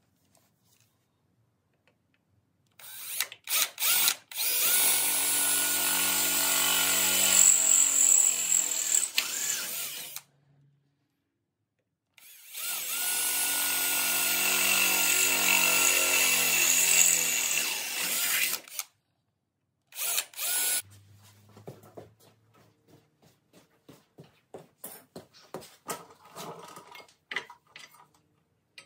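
Cordless drill boring through a steel Jeep frame rail: two short trigger blips, then two long steady runs of about six seconds each with a pause between, the motor's pitch dropping near the end of each run. A brief burst follows, then light clicks and taps of metal parts being handled.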